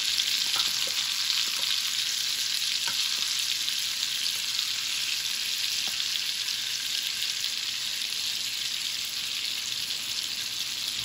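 Porterhouse steak sizzling in olive oil and butter in a hot cast iron skillet: a steady frying hiss with a few small pops of spattering fat.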